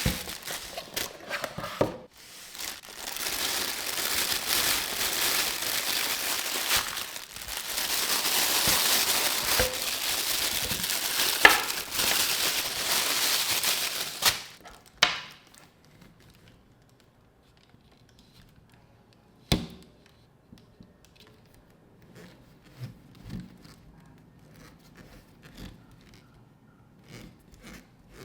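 Plastic packaging being crinkled and torn open by hand for about the first half, then quieter handling with scattered small clicks and one sharp click.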